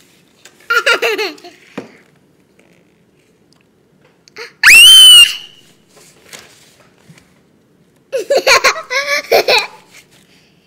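A toddler laughing and giggling right up against the microphone in three bursts, with a loud, high-pitched shriek about five seconds in.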